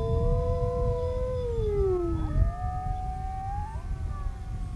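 Several grey wolves howling together in a chorus of long, overlapping howls at different pitches. About halfway through, the deepest howl slides down while a higher voice rises. A low rumble runs underneath.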